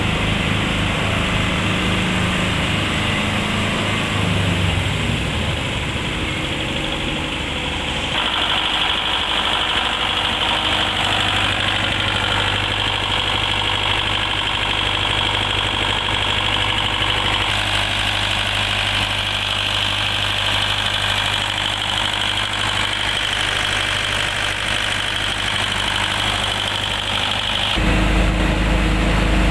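FAW diesel engine of a 30 kVA Stamford generator set running steadily. About eight seconds in the sound changes and a steady high whine joins the engine; near the end the deep low hum comes back stronger.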